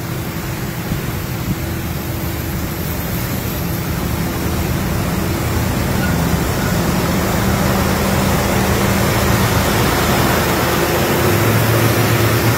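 Steady road and wind noise heard from inside a moving vehicle, with a low engine drone under it, growing gradually louder.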